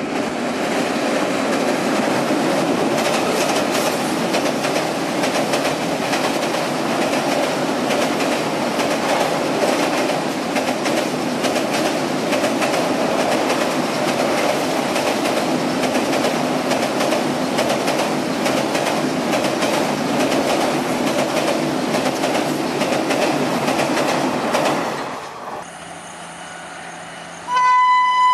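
Passenger coaches rolling past close by over a steel girder bridge: a dense rumble with a fast, steady clatter of wheels over the rail joints. It fades out at about 25 seconds, and near the end an electric locomotive sounds its horn in a steady blast.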